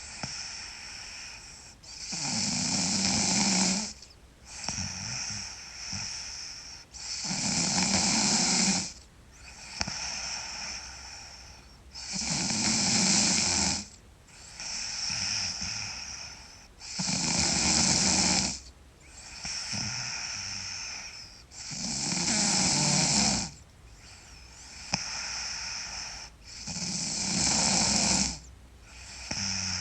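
A sleeping person snoring loudly in a steady rhythm: a loud snore about every five seconds, with a softer breath in between.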